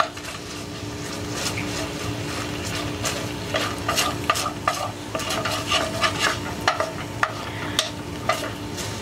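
Wooden spoon stirring a Dijon pan sauce in a skillet on the heat, the sauce sizzling steadily, with frequent short scrapes and taps of the spoon against the pan.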